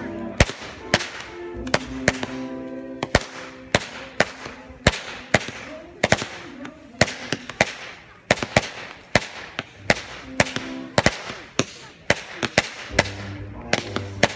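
Aerial fireworks firing and bursting overhead: an irregular string of sharp bangs and crackles, several a second.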